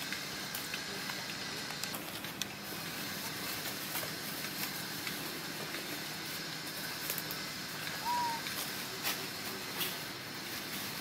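Steady outdoor background hiss with scattered faint clicks, and one short squeak about eight seconds in.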